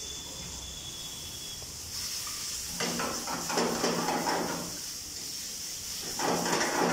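Spaghetti sizzling in a hot frying pan of tomato sauce under a steady hiss. It is stirred and tossed with tongs and a ladle in two louder stretches, about three seconds in and again near the end.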